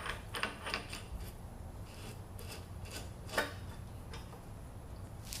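Light clicks and scrapes of steel bearing-puller parts being handled as a coarse-threaded jacking nut is fitted, with one louder click about three and a half seconds in.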